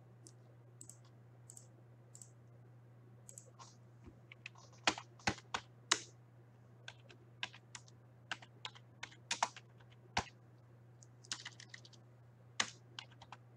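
Computer keyboard typing in irregular runs of sharp key clicks, with a steady low hum underneath.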